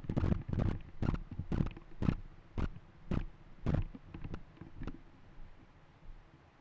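Footsteps walking down a dirt path, about two steps a second, growing fainter and stopping about five seconds in.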